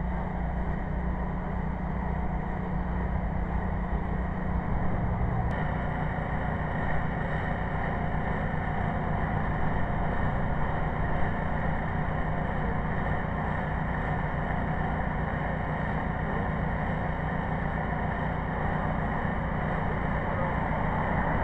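An engine running steadily, a constant low drone; its tone changes abruptly about five and a half seconds in, then holds steady again.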